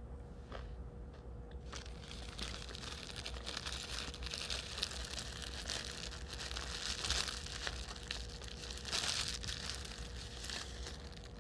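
A thin clear plastic bread bag being handled and crinkled, starting about two seconds in, a dense run of crackles that is loudest twice in the second half.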